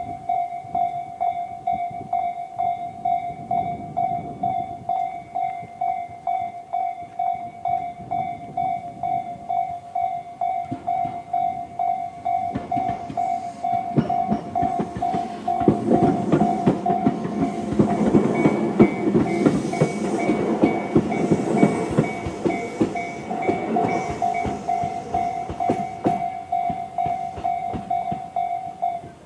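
Japanese level-crossing electronic warning bell (Tobu's "sound C") sounding a steady, repeated ding, cutting off just at the end. A Tobu 10000 series electric train passes from about halfway through, its wheels clacking over the rail joints, loudest for a few seconds before fading away.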